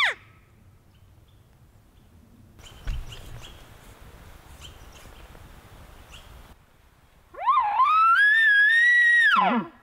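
Elk bugle: a long, high whistle that climbs and holds, then drops away into low grunts near the end. Before it, faint noise with a single knock about three seconds in, and the very end of a falling call right at the start.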